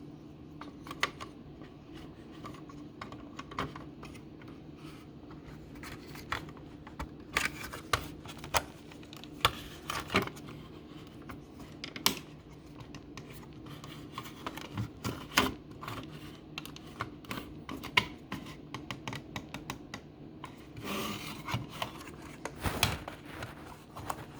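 Plastic clicks, scrapes and rubbing from hands fitting a 9-volt battery back into a smoke detector and working its battery compartment, in irregular bursts, over a faint steady low hum.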